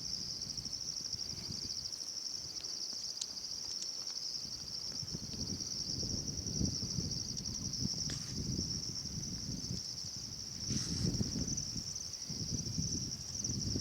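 Continuous high-pitched trilling of crickets or similar insects in chorus, steady throughout. From about five seconds in, an uneven low rumble comes and goes beneath it.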